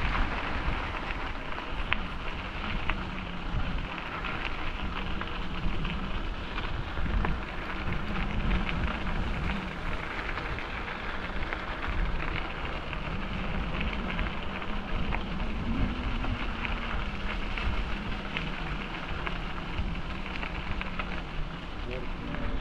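Bicycle tyres rolling over a rough path, a steady crackling hiss with scattered small ticks, with wind noise on the microphone.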